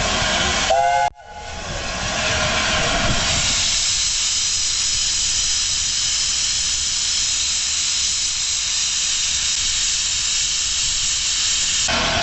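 Steam hissing steadily from LNER A4 steam locomotive 4468 Mallard. A short pitched sound and a sudden dropout come about a second in.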